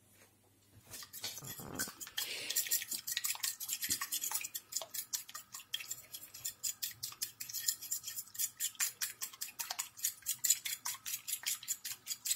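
A metal fork beating a raw egg on a china plate: quick, steady strokes, the fork clicking and scraping against the plate several times a second, starting about a second in.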